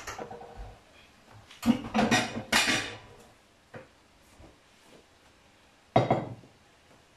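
Dishes and cutlery clattering in a stainless-steel sink as they are handled for washing up. A cluster of clinks and knocks comes from about one and a half to three seconds in, then a few small ticks, then one sharp clatter at about six seconds.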